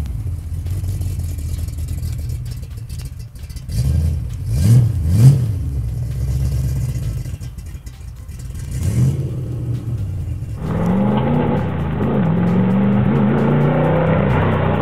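Mid-mounted 3.5-litre Rover V8 in a modified Renault Twingo revving in sharp blips as the car is driven around, the engine note climbing and dropping, loudest about five seconds in. About ten seconds in the sound cuts to a thinner recording of the car driving along a road, its engine note rising and falling again.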